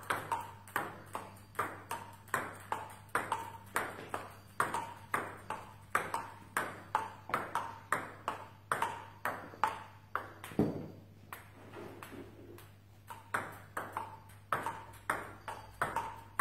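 Table tennis ball clicking off bats and bouncing on the table in a steady rhythm, about two to three hits a second. There is a dull thump about ten seconds in, followed by a short lull before the clicks resume.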